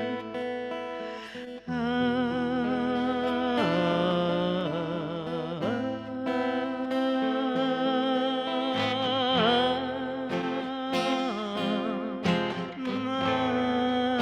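Acoustic guitar accompaniment with a sustained melody line over it that wavers with a strong vibrato, between sung verses of a song. There is a brief drop at about two seconds in.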